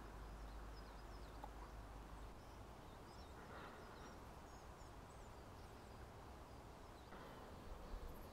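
Near silence: a faint even hiss with a few scattered high chirps from small birds.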